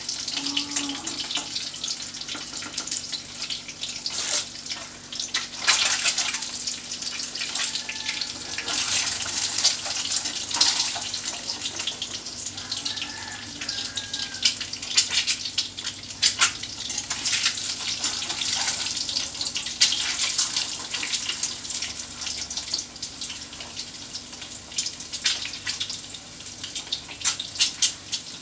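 Peeled boiled eggs frying in hot oil in an iron kadai: a steady sizzle with frequent sharp pops and crackles of spattering oil.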